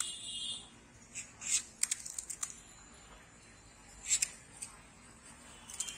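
Scattered crisp clicks and scrapes of fuchka being prepared in a ceramic bowl, as the puri shells and filling are handled; a cluster of clicks comes a couple of seconds in and another about four seconds in.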